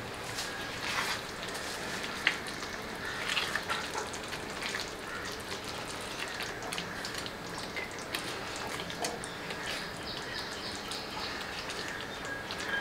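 Chicken kofta gravy simmering in a metal pan, a steady bubbling crackle with scattered pops, and now and then a spoon knocking and scraping as it turns the meatballs.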